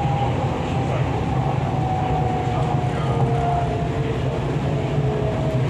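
Hyundai Rotem R-Train electric multiple unit running on the MTR East Rail Line, heard from on board: a steady low rumble of the running gear, with a faint whine from the traction equipment slowly falling in pitch as the train slows.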